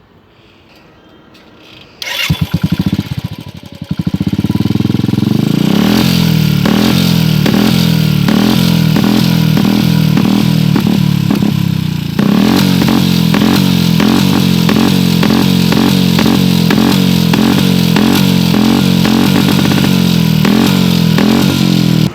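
Royal Enfield Classic 350's single-cylinder engine being started about two seconds in, then running steadily with an even, pulsing beat. There is a brief dip about twelve seconds in.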